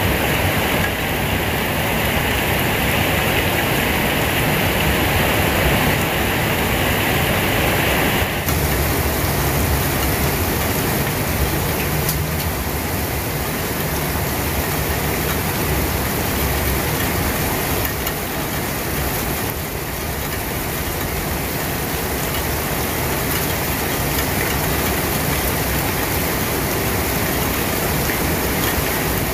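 Rain falling steadily, a dense even hiss. About eight seconds in the sound changes abruptly and loses some of its brighter hiss, then carries on just as steadily.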